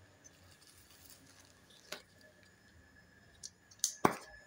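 A few light clicks and taps from small objects being handled, with a sharp click about four seconds in the loudest.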